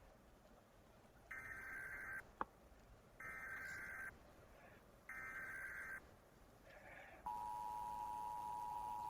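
Emergency Alert System SAME header: three identical bursts of buzzing digital data tones, each just under a second long, about two seconds apart. Then the two-tone EAS attention signal starts, a steady held tone. A sharp click comes just after the first burst.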